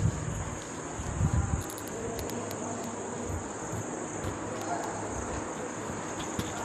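Insects chirring steadily at a high pitch, with a few low bumps in the first second and a half.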